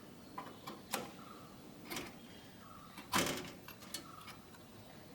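Desktop RAM module being slid and pushed into its motherboard memory slot: a handful of light knocks and scrapes of the module against the slot, the loudest about three seconds in.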